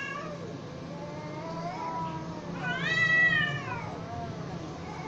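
Cats yowling at each other in a standoff: long, drawn-out threat yowls that waver and rise and fall in pitch, the loudest swelling up and dying away about three seconds in.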